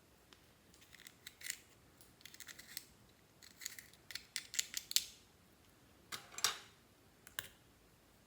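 Clear slime worked by hand: an irregular string of short sticky clicks and crackles, loudest around the middle.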